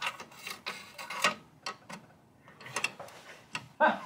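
Irregular metallic clicks and taps of a socket tool working loose the last transmission-to-engine bolt on a BMW X5 manual gearbox, a few at a time with short gaps between.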